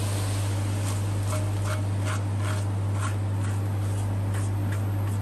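Hot tempering oil with fried spices sizzling as it is poured into simmering kadhi, while a silicone spatula scrapes it out of the steel pan in short strokes about three a second. A steady low hum runs underneath.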